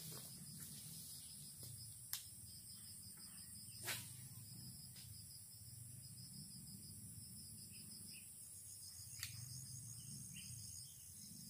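Faint insects chirping in a high, fast-pulsing trill, with three sharp clicks, the second one loudest.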